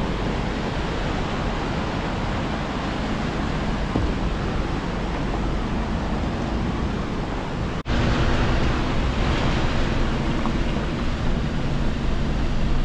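Steady rushing of a fast whitewater mountain creek, mixed with the noise of a van running along a rough gravel road. About eight seconds in it cuts abruptly to a louder stretch of rushing water with a low, steady hum beneath it.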